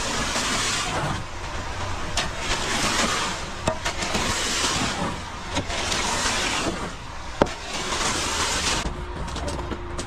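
Wet concrete sliding down a ready-mix truck's chute into a wheelbarrow in rushing surges about every two seconds, over the steady low rumble of the truck. The pour stops near the end.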